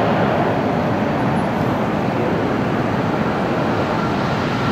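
Boeing 737-800's CFM56 turbofan engines on approach, a steady jet roar with a thin high whine coming in near the end.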